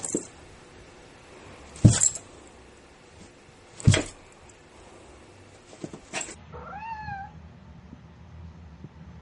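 Two sudden, loud, short sounds about two seconds apart. Then a domestic cat gives a few short, high meows that rise and fall in pitch.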